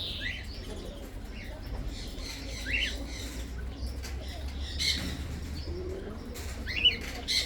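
Parrots in an aviary giving short, sharp calls every second or two, over a low steady rumble, with a few brief sharp sounds, the loudest just before the end.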